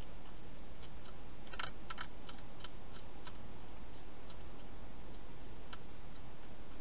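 Wild hedgehog crunching dry food: irregular sharp clicks, with a quick cluster about one and a half to two seconds in and single clicks spread through the rest.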